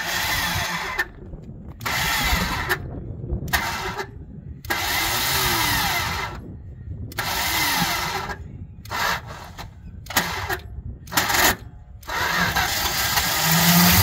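A 1967 Dodge Charger's 383 big-block V8, unrun for a long time, being cranked over by the starter in repeated short bursts of about a second each, with a rising starter whine in each. Near the end comes a longer, louder crank as the engine begins to fire.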